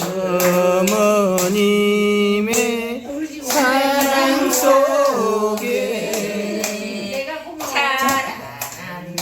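Singing with long, wavering held notes, in a Korean folk or trot style, over steady hand-clapping that keeps the beat.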